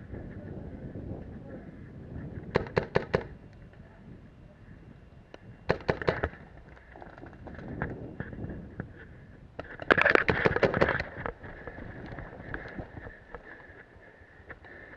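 Paintball markers firing in quick strings of shots: a string about two and a half seconds in, another around six seconds, and a longer, denser volley around ten seconds.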